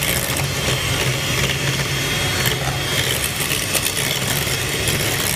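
Electric hand mixer running with a steady motor hum, its beaters whisking chocolate cupcake batter in a glass bowl.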